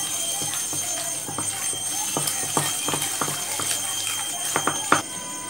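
Thick bottle gourd, carrot and semolina batter being beaten by hand in a bowl: wet slaps and squelches about two to three times a second, stopping near the end.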